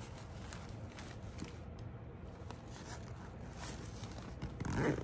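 Faint rustling and small clicks of a Coach canvas-and-leather satchel being handled, fingers working the zip of its inside pocket, with a louder rustle near the end.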